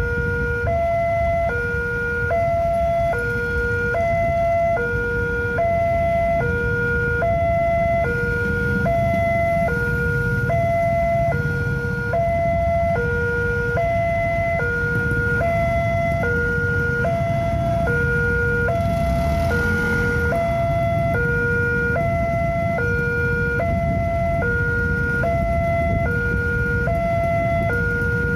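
Indonesian railway level-crossing alarm sounding its steady two-tone hi-lo warning, the two tones alternating about every two-thirds of a second, which signals that the crossing is closed for an approaching train. Underneath is the low running of motorcycle and car engines idling in the queue.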